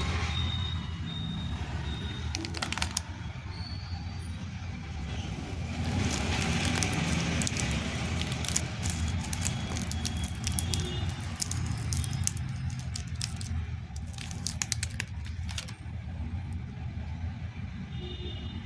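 Plastic candy and toy packaging being handled and torn open: irregular clusters of crinkling and sharp clicks over a steady low rumble.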